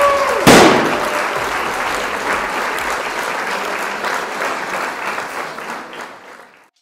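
Crowd applauding, with one sudden loud hit about half a second in; the applause fades out near the end.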